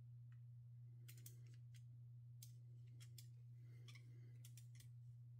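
Faint, scattered clicks and light taps from handling the EV charger cable and a measuring tool while measuring the cable's thickness, over a steady low hum.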